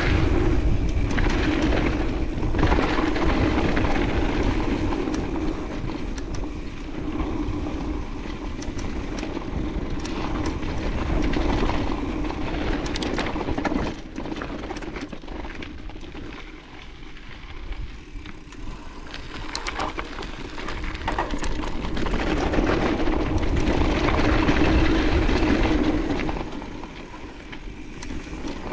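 Mountain bike ridden down a dirt trail, heard from a chest-mounted action camera: tyres rolling over dirt, wind on the microphone, and frequent clicks and rattles from bumps. A steady hum swells and fades with speed, dropping away in the middle and building again near the end.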